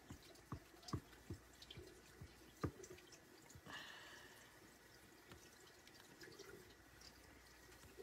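Near silence with faint light clicks and taps, several in the first three seconds, and a short soft hiss about four seconds in, from a hand working a stencil transfer on a chalkboard.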